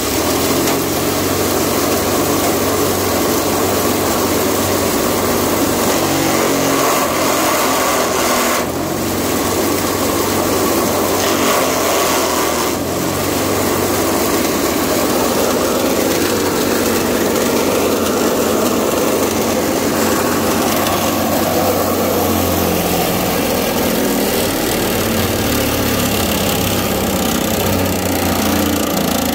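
Electric wood-and-branch chipper, driven by a 2 HP (1500 W) electric motor, running loud and steady as it shreds branches and leaves into fine chips. There are brief dips in the noise about nine and thirteen seconds in.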